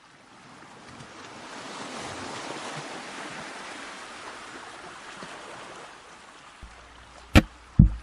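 A soft surf-like rushing noise swells over about two seconds and slowly dies away. Near the end, the first punchy drum hits of a pop song's backing track come in.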